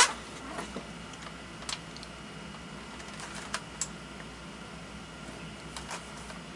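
A few scattered light clicks and taps as a JG G3 airsoft rifle is handled and lifted out of its cardboard box.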